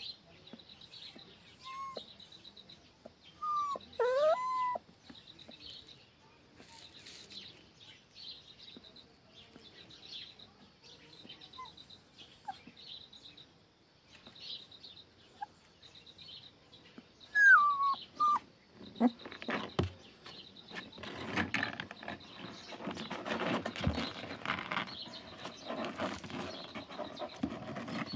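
Young puppy whimpering, a few short high whines that rise and fall, about four seconds in and again at around seventeen seconds. From about two-thirds of the way through, its claws scratch and shuffle on the plastic tub as it moves.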